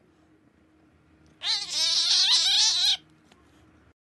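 Domestic cat giving one long, loud, wavering meow of about a second and a half, a complaint at having its claws clipped.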